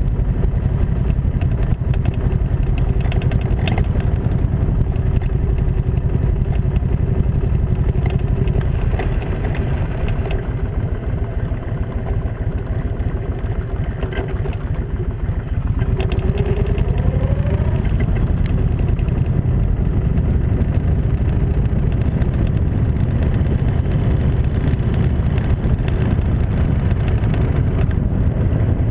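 Kawasaki Mean Streak motorcycle's V-twin engine running under way. It eases off for a few seconds while the bike slows, then pulls up through the revs again about sixteen seconds in.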